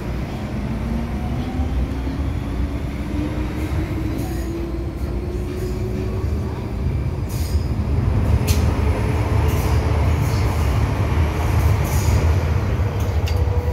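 MTR M-Train traction motors whining as the train accelerates, the pitch rising steadily, over a heavy running rumble that grows louder partway through. Short high-pitched squeaks and clicks from the wheels and car body come in the second half.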